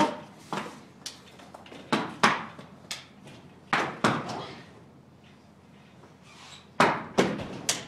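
BMX bike banging and clattering on the wooden floor of an empty semi-trailer: a string of sharp knocks that echo in the hollow box, with a quieter stretch a little past the middle and the loudest knocks near the end.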